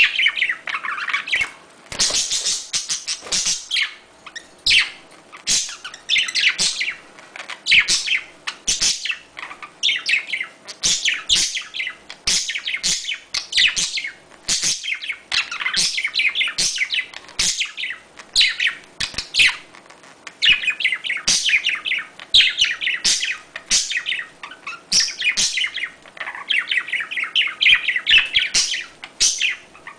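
A mating pair of budgerigars chattering: quick runs of short, high chirps that go on almost without a break, with only brief pauses.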